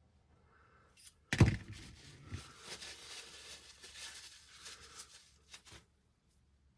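A sharp knock, then a few seconds of rustling and crinkling with small clicks, as small parts are handled at a workbench.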